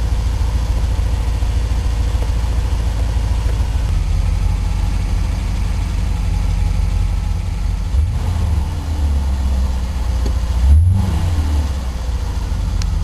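1984 Corvette's 5.7-litre Crossfire Injection V8 idling during a cold warm-up at about 25 degrees. The idle note changes about four seconds in, and the engine revs up and falls back twice, about eight and eleven seconds in.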